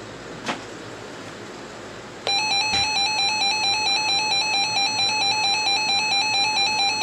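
Emergency Alert System attention tone that starts abruptly about two seconds in and holds steady: a loud, buzzy electronic tone that warbles rapidly. Before it there is only faint radio hiss and a single click.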